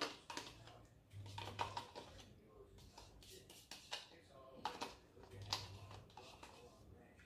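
Quiet, irregular clicks and scrapes of a utensil against a plastic tub and the frying pan as soft white cheese is scooped out into the pan.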